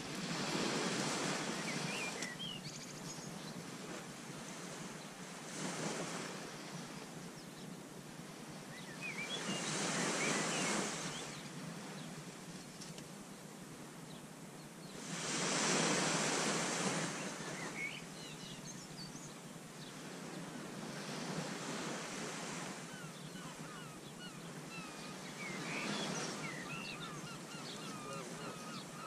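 Small waves breaking and washing up a sand beach, swelling every four to six seconds over a steady hiss of surf.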